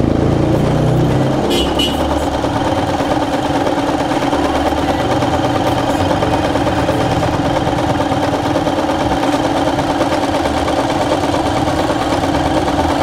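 Riccar 2200 computerised sewing machine running at a steady speed, its needle stitching a decorative pattern through cotton fabric.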